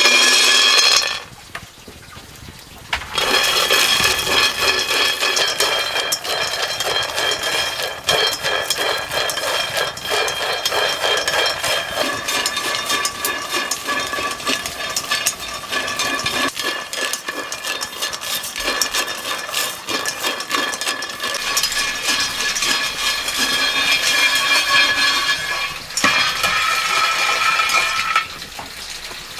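Raw peanuts poured into an empty wok with a loud rush, then, after a short pause, stirred and tossed in it. The nuts rattle and scrape against the metal in a dense run of clicks, over a ringing from the wok.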